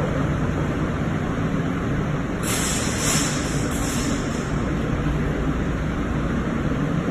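Industrial food-processing machinery running with a steady low rumble. About two and a half seconds in, a hiss of escaping air or steam lasts roughly two seconds.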